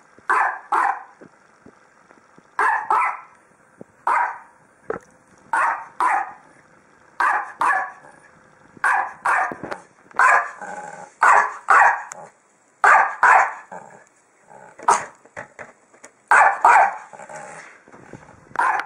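Dog barking over and over, mostly in quick pairs of barks, a pair about every one and a half seconds.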